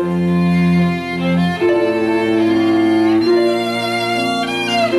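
Small string ensemble of violins, viola, cello and harp playing a slow piece in long, sustained bowed chords, the harmony shifting about one and a half seconds in and again about three seconds in.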